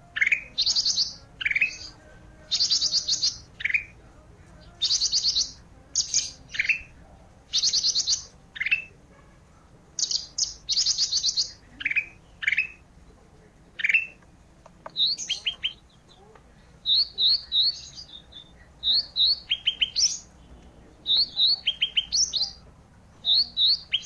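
A songbird that Indonesian bird-keepers call 'ranting' singing busily: short rising chirps alternating with fast buzzy trills about half a second long, then from about midway quicker clusters of short high notes, with brief pauses between phrases.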